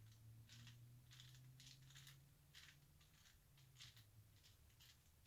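Faint plastic clicking of a 4x4 Rubik's cube's layers being turned: a quick, uneven series of about ten short clicks, over a low steady hum.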